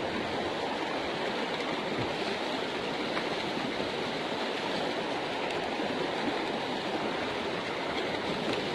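Swift river water rushing steadily, a river running high and fast after recent flooding.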